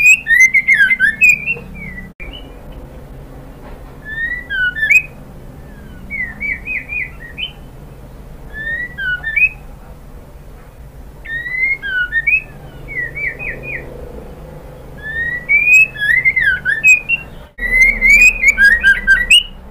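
White-rumped shama (murai batu) calling in about seven short phrases of quick, gliding whistled notes, with pauses between them.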